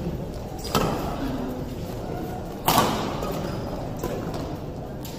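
Badminton rackets striking the shuttlecock in a rally: three sharp hits, less than a second in, near three seconds in (the loudest, a smash-like crack) and about four seconds in, each ringing briefly in a large hall.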